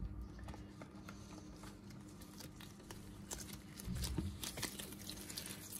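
Soft handling sounds of gloved hands pressing and shaping a dense paste of crushed edible clay: scattered light clicks and taps, with a low soft thump about four seconds in.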